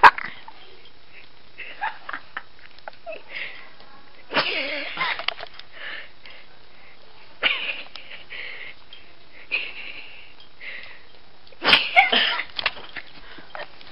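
A teenage boy laughing in several short, breathy, wheezing bursts, the loudest near the end. A sharp knock comes right at the start.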